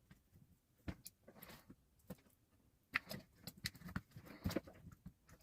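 Small plastic parts of a soldering gun's housing being handled and fitted together: irregular faint clicks and light knocks with brief rustling, busiest in the second half.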